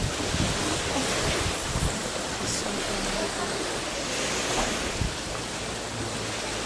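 Steady rushing noise of sea and wind, with irregular low buffeting of wind on the microphone.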